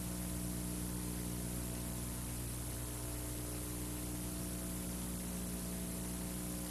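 Steady electrical mains hum with a layer of hiss, unchanging throughout, with no tool or other event heard.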